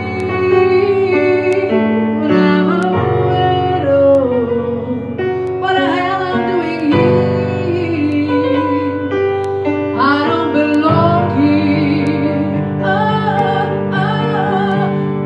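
A woman sings a slow melody with vibrato into a microphone, accompanied by a grand piano playing sustained chords.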